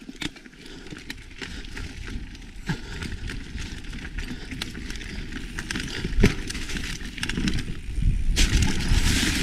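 Mountain bike rolling fast down a dirt trail covered in dry leaves: tyres crunching over dirt and leaves, with many small knocks and rattles from the bike. A sharper thump comes about six seconds in, and the rushing noise grows louder near the end.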